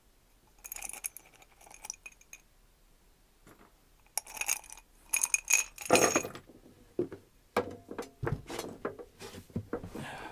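Loose metal bolts and small parts clinking and ringing as they are rummaged through by hand, in a few short clusters, followed by a denser run of knocks and clatter as parts are picked up and handled.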